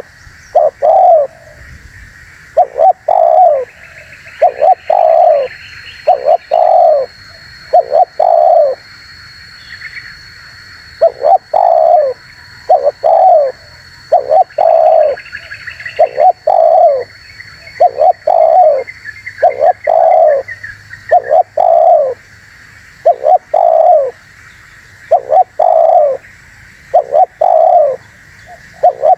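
Spotted dove (terkukur) cooing over and over: short groups of low, hollow coos repeated every couple of seconds, with faint higher chirping behind.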